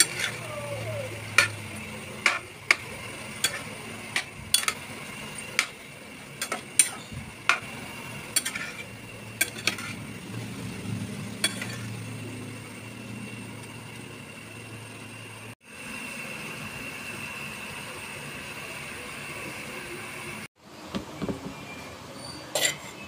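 Chicken feet simmering and sizzling in adobo sauce in a metal pan, a steady hiss, while a utensil stirs them with repeated sharp clinks and knocks against the pan about once a second. Near the end, the pan is tipped over a bowl with a few more clinks as the food is scraped out.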